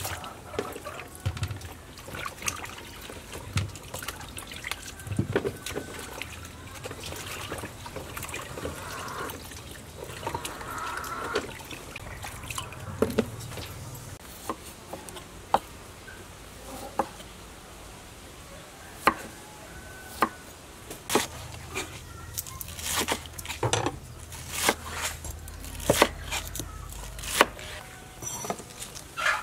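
Hands washing mud crabs and vegetables in bowls of water: water sloshing and trickling, with scattered knocks of shells and bowls. A run of sharper taps comes thicker near the end.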